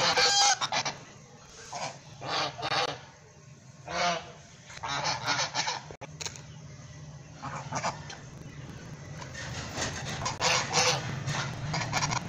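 Several white domestic geese honking in repeated bursts, loudest about a second in and again around ten to eleven seconds in, over a steady low hum that starts about four seconds in.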